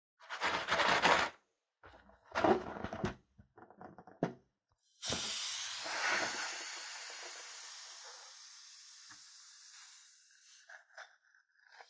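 Hands squeezing and rubbing a rubber balloon, two short bursts of noise. About five seconds in, air starts hissing out of the balloon and the hiss fades slowly over about five seconds as it deflates.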